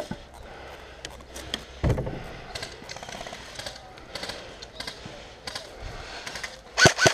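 Airsoft gun firing a rapid burst of about half a dozen sharp shots near the end, over a low background of rustling and scattered faint clicks.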